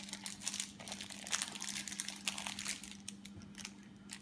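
Clear plastic snack wrapper crinkling in irregular crackles as it is handled, over a steady low hum.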